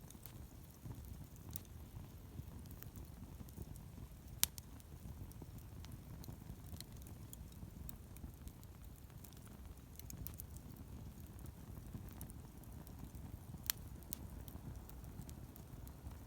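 Wood campfire burning: a low steady rumble with scattered small crackles and pops, two sharper pops about four seconds in and near the end.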